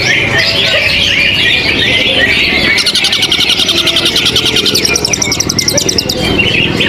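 Several caged songbirds singing at once, a dense chatter of quick chirps and warbles, with one bird breaking into a fast, high, evenly repeated trill from about three seconds in until about six.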